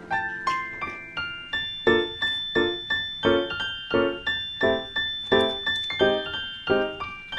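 Background piano music: a light tune of struck notes, each fading away, in an even beat of about two notes a second.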